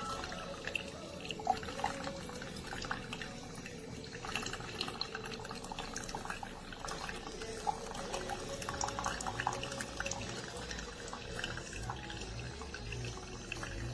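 Tastyle mini single-serve coffee maker brewing: hot water trickling and dripping through into the cup with small crackling ticks, over a faint steady hum.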